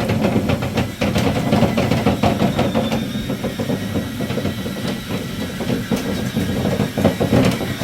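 Power drill running steadily, spinning a dryer-vent cleaning brush on flexible rods inside the vent duct, with many quick rattles and knocks as the rods whip and strike around.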